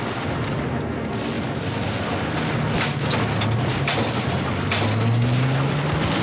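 A volley of pistol gunfire, many shots in quick succession, over a dramatic music score that has a low tone rising in pitch in the second half.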